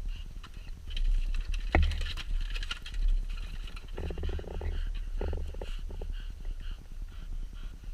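Low, rapid fluttering hum from a defective GoPro Hero 4 Black: interference from the camera's own WiFi bleeding into its audio, the known 'helicopter sound' fault. A couple of short pitched sounds come through about four and five seconds in.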